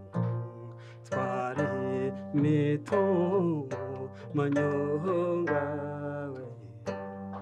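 Inanga, the Rwandan trough zither, plucked in a flowing run of notes, with a voice singing along.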